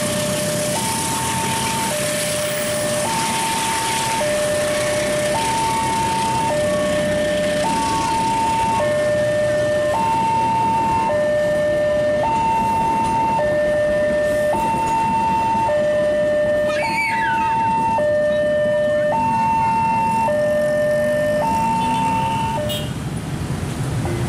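Railway level crossing warning alarm sounding its electronic two-tone signal, a higher and a lower tone alternating, each held about a second, over the noise of a passing train. The alarm stops near the end.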